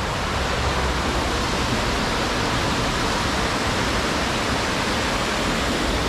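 Stream of water from the Neer waterfall rushing steadily past, an even unbroken noise of flowing water.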